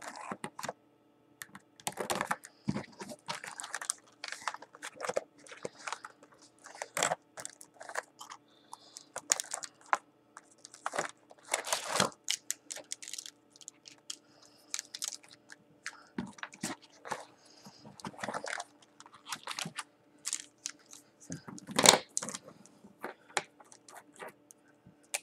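Felt-tip markers being pulled out of their plastic packaging tray and set down on a table: irregular clicks, rattles and crinkling plastic, loudest a little before the end. A faint steady hum runs underneath.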